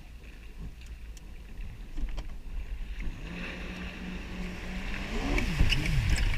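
Yamaha jet ski engine running over a low rumble of water and wind. About halfway through it settles into a steady note, then revs up and down near the end as the hiss of spray grows louder.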